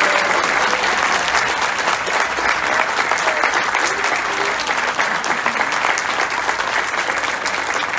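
A crowd applauding, with dense, steady clapping that runs through and eases slightly toward the end. A few voices are mixed in.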